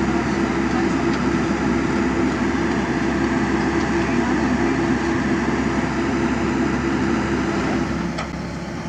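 Komatsu mini excavator's diesel engine running steadily close by, a constant hum that gets a little quieter near the end.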